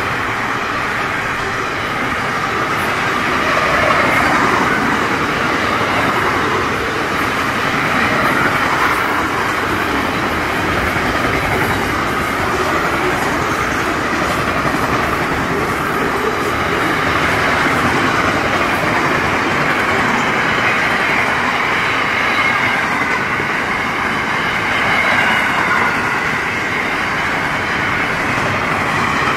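Intermodal freight train's container flat wagons rolling past, a loud, steady, unbroken noise of steel wheels running on the rails.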